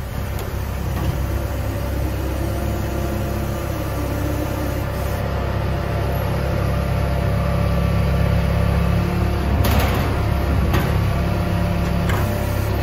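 A loader's engine running steadily while it lifts and works its pallet forks, with a couple of sharp clanks about ten seconds in as the load goes into the truck.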